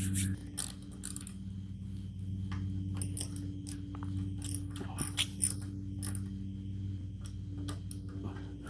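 Steady low droning hum from heavy compaction machinery at work outside, a plate compactor or roller, shaking the air. Scattered small metallic clicks and ticks of hand tools and parts being handled sound over it.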